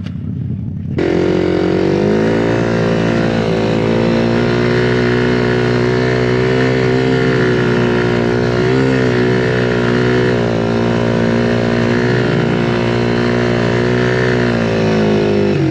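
Honda CB300's single-cylinder engine, fitted with an aftermarket exhaust, pulling steadily as the bike rides off across grass. The engine note jumps up about a second in, then holds nearly even with small rises and dips.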